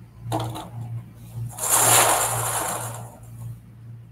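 White lottery balls tumbling and rattling inside a hand-cranked metal lottery drum as it is turned, a burst of about a second and a half starting about a second and a half in.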